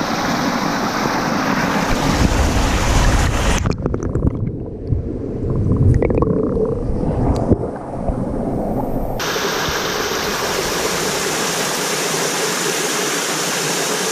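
Steady rush of water from a rocky gorge stream. From about four to nine seconds in the sound turns muffled, with a heavy low rumble and a few knocks on the microphone.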